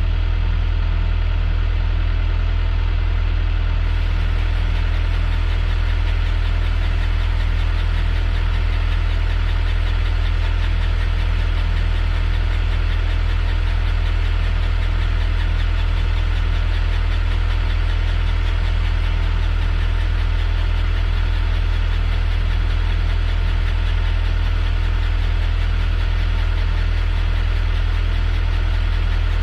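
Caterpillar 205LC excavator's diesel engine idling steadily with a low, even hum.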